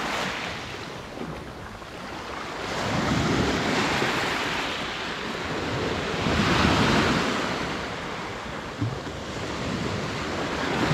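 Sea waves washing onto a shore of pebbles and boulders, surging twice, about three and about six seconds in.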